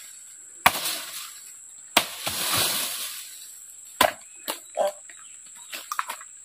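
Three sharp machete (parang) chops into a small tree trunk, spaced a second or two apart, the middle one followed by a rustle of shaken leaves and branches. Lighter knocks and cracks of wood follow near the end as the tree is worked toward falling.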